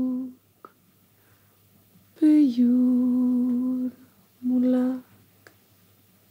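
A woman humming a lullaby in slow, low held notes with pauses between them. The longest note, about two seconds in, slides down and then holds steady.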